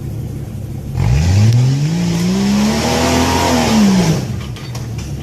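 Off-road 4x4 engine idling, then revved hard about a second in: the pitch climbs for about two seconds and falls back as the throttle comes off, with a loud rushing noise alongside, before it settles to idle again.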